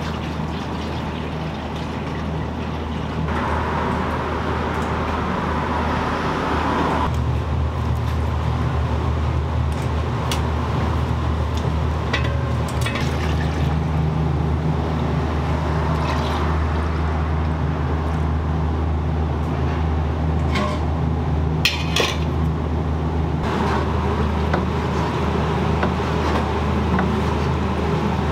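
Liquid running into a container over a steady low kitchen hum, with a few light knocks about two-thirds of the way in.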